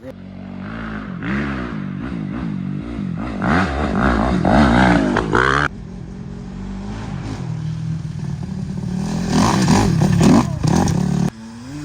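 Dirt bike engine revving up and down as it is ridden. The sound cuts off abruptly about halfway through, and a second stretch of riding builds up until it cuts off again near the end.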